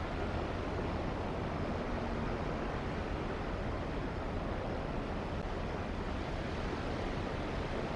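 Steady wash of surf on a beach mixed with wind on the microphone.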